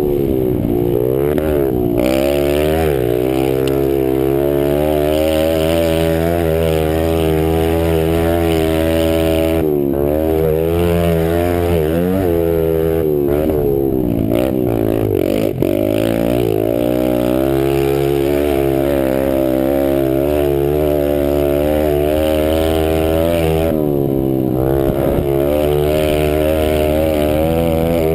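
Pit bike engine at race pace, revving up through the gears. The pitch drops sharply three or four times as the throttle is shut off, then climbs again under power.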